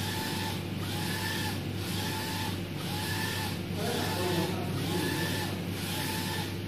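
UV flatbed printer running, its print-head carriage shuttling back and forth across the bed. The carriage motor whines up and down on each pass, about once a second, over a steady hum.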